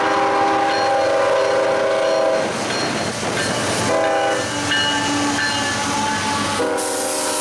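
Air horn of a CSX GE ES44AC freight locomotive blowing its chord in several blasts, breaking off about two and a half seconds in and starting again, with a fresh blast near the end, over the rumble of the passing train.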